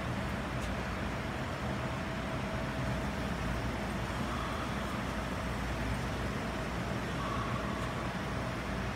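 Steady low rumble of background noise with a faint constant hum, no distinct events.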